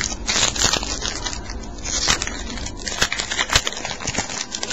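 A 2008 Stadium Club baseball card pack's wrapper being torn open and crinkled: a dense crackling with several sharper snaps spread through it.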